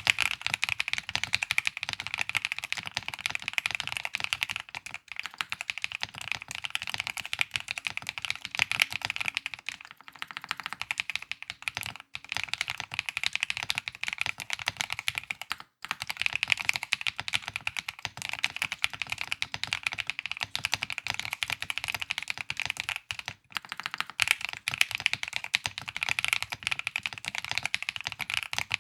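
Continuous fast typing on a GMK67 mechanical keyboard with lubed and filmed KTT Kang White linear switches on a polycarbonate plate, foam-dampened and tape-modded: a dense stream of high-pitched keystroke clacks with little bass, broken by a few short pauses.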